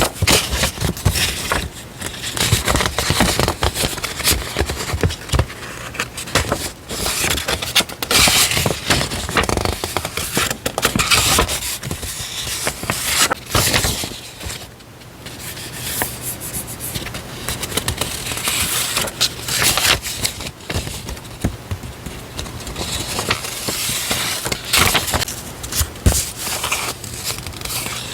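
Paper stationery being handled close to the microphone: continuous rustling and crinkling with scrapes and small taps, easing off briefly about halfway through.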